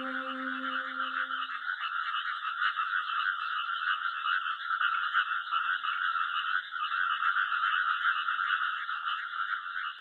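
Dense chorus of many frogs calling at once, a continuous pulsing trill. A held note of soft background music fades out within the first two seconds.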